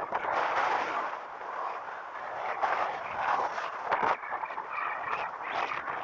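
Uneven noise buffeting an action camera's microphone while riding along a city street, with a sharp knock about four seconds in.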